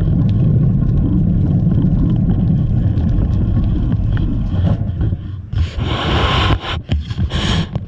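Wind buffeting the microphone while cycling, a dense low rumble. About five and a half seconds in the rumble drops away and two spells of hissing, scraping noise follow, each about a second long.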